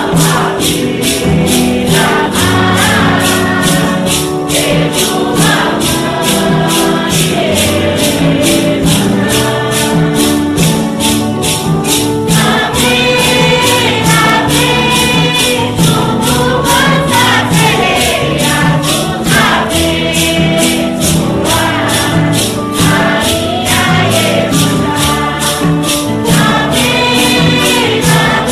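A song to Iemanjá sung in Portuguese by a group of voices over a steady percussion beat.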